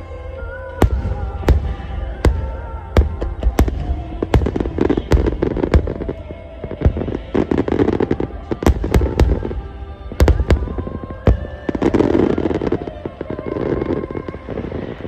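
Aerial fireworks shells bursting in a rapid, irregular series of sharp bangs, some clusters crackling. Music plays underneath.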